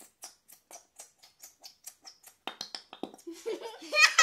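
A quick run of short clicks, about four a second, from the slime-making at the table, getting louder toward the end. Near the end a child breaks into laughter.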